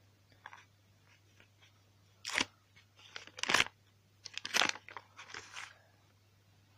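Paper rustling and crinkling in several short bursts as a small handmade paper surprise packet is unfolded and opened.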